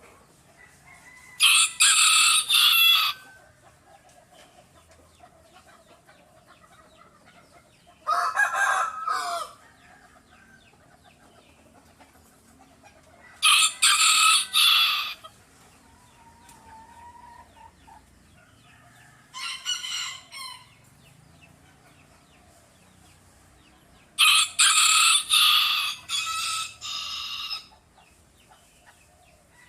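Rooster crowing five times, several seconds apart; the last crow is the longest.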